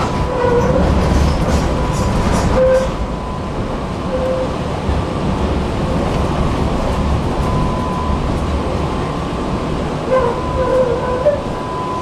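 Tatra T3 tram running along the track: a steady low rumble with clicks over the rails in the first few seconds, a steady high whine, and several brief squealing tones, the last cluster near the end.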